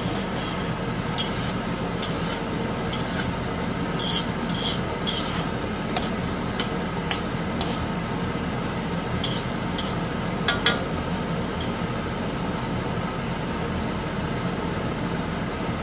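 Beef fat simmering and sizzling in a wok while a metal spatula stirs it, scraping and clinking against the pan a dozen or so times, loudest about ten and a half seconds in, over a steady background hum.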